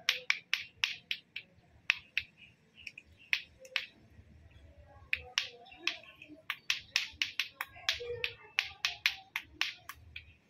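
Lato-lato clacker toy: two hard plastic balls on a string knocking together in a run of sharp clacks. The clacks come unevenly at first, pause near the middle, then quicken to about three or four a second.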